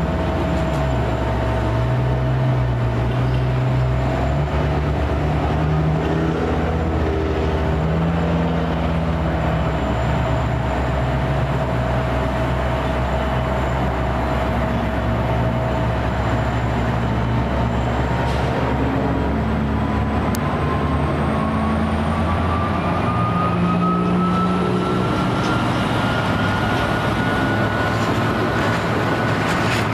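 Metra diesel locomotive 512 running as it pushes a commuter train slowly along, its engine drone shifting in pitch. In the second half a whine rises steadily in pitch as the train gathers speed.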